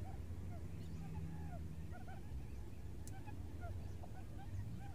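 Quail calls: short arched notes repeated irregularly, about one or two a second, over a steady low hum. This is the lure call used to draw wild quail, and a single sharp click sounds about three seconds in.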